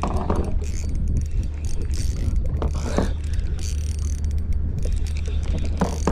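Fishing reel being cranked to bring in a hooked fish, its gears whirring and clicking, over a steady low rumble.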